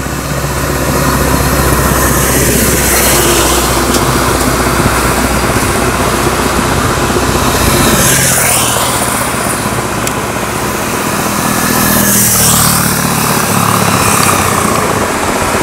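Road traffic passing close by over a steady low engine hum: a lorry drives past about halfway through, and motorcycles pass a few seconds later.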